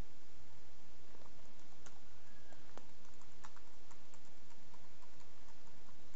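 Computer keyboard typing: irregular keystroke clicks starting about a second in, over a steady background hiss.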